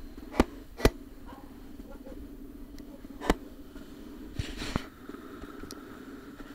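Motorcycle engine running steadily at low speed, with a few sharp knocks: two in the first second and one about three seconds in.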